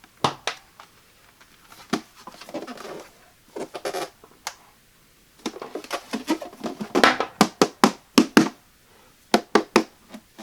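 Hands handling a plastic coffee maker and its packaging: irregular sharp clicks, taps and short rustles. They come in a dense run of quick knocks from about five and a half to eight and a half seconds in.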